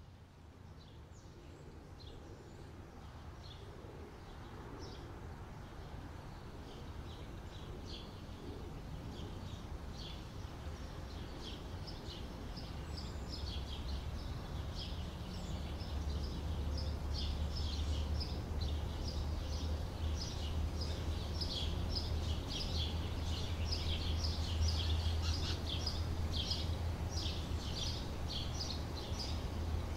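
Outdoor ambience of many small birds chirping in short, rapid calls over a steady low rumble, the whole growing gradually louder, the chirping densest in the second half.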